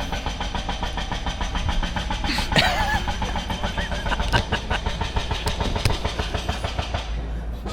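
A small engine running steadily, with a rapid, even pulsing.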